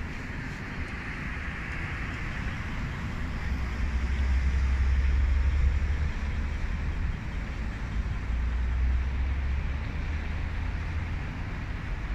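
City street traffic: cars driving past on a wet road with a steady tyre hiss. A low engine rumble swells in a few seconds in and fades near the end.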